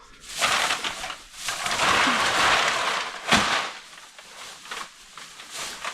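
Bagged aluminum drink cans rattling and crinkling as the bags are handled, with one sharp knock a little over three seconds in and a few lighter clicks after.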